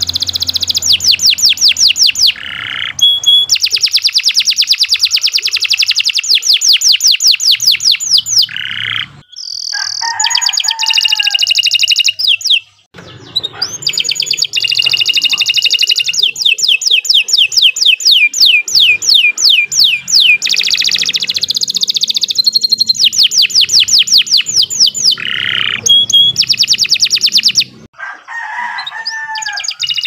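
Canary singing long, rapid trills of quickly repeated high notes, phrase after phrase, with brief breaks of about a second between runs.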